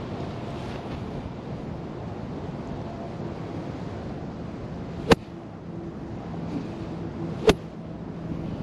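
Wind blowing on the microphone, with two sharp clicks about two and a half seconds apart in the second half, and a faint low drone behind them.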